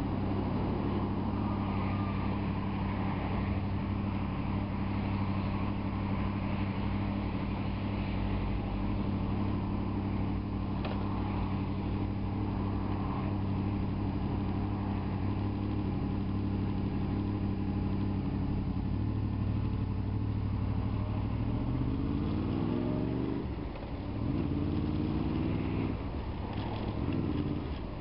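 Honda VFR motorcycle's V4 engine idling steadily at a standstill. About 22 seconds in it revs up as the bike pulls away, dips briefly at a gear change, then rises in pitch again.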